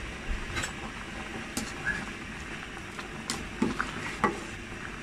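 Pot of macaroni at a rolling boil, bubbling steadily. A metal spoon stirring the pasta knocks against the aluminium pot several times.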